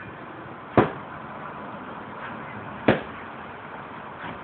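A fist punching a hanging training bag filled with sand and cotton: two sharp hits about two seconds apart.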